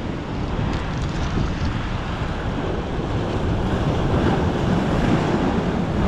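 Steady wind buffeting the microphone over waves washing against the jetty rocks, with a few faint clicks about a second in.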